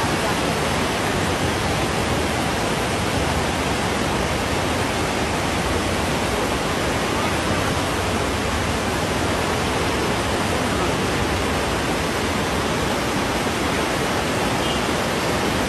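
A river in flood, brown with mud and silt, rushing past in a steady, unbroken wash of water noise.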